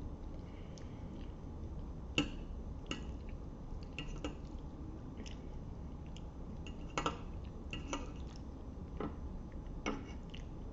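Eating spaghetti: a fork clinks sharply against the plate about seven times at uneven intervals, with soft wet squishing of the sauced noodles in between.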